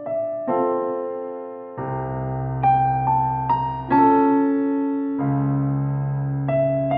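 Background music: a slow electric piano piece with notes and chords struck one after another and left to ring.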